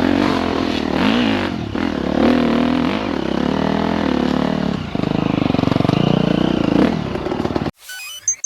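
Off-road dirt bike engine revving up and down repeatedly as the bike is ridden, with clatter and trail noise. It cuts off abruptly near the end, followed by a few short electronic beeps.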